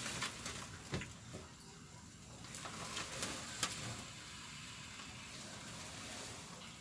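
Paper lining a cage floor rustling and crackling as reticulated pythons shift their coils over it, with a few sharp clicks.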